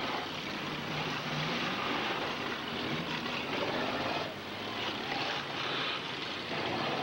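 Demolition derby car engines running under a steady wash of noise.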